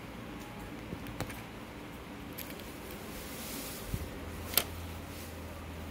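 USB flash drive being handled and pushed into a Lightning OTG adapter: a few light plastic clicks, then a sharp click about four and a half seconds in as the plug seats in the socket.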